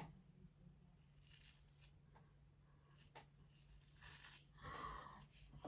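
Near silence: room tone with a low steady hum, a few faint clicks and a soft rustle of handling near the end, closed by a sharp click.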